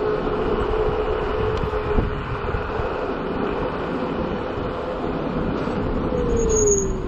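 Navee N65 500 W electric scooter riding along, its motor whining steadily over low road noise. Near the end the whine falls in pitch as the scooter slows, with a brief high squeal.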